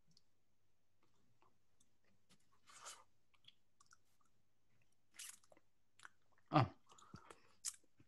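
A person biting and chewing something hard and crunchy, a few separate crisp crunches with pauses between them, plus one louder knock a little past halfway.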